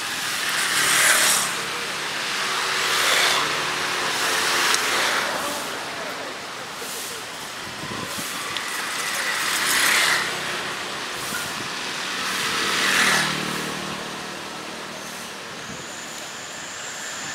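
Off-road 4x4 vehicle engines revving in repeated surges, each surge carrying a rushing hiss, about five times.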